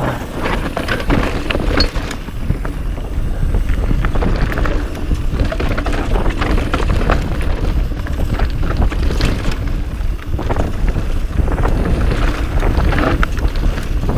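Mountain bike riding down rocky dirt singletrack. Wind rushes over the microphone, tyres roll over loose rock, and the bike rattles with many small knocks.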